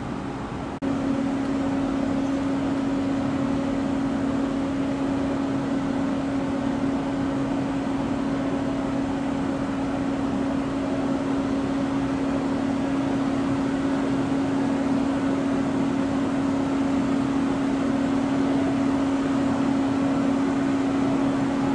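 Steady drone from a parked jet airliner and its ground equipment at the gate: a constant hum-like tone over a rushing hiss, jumping louder about a second in and then holding steady.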